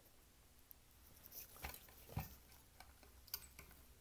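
Near silence with a handful of faint clicks and taps from the sheet-metal solenoid assembly of a model-railroad track switch being handled and set down into its base.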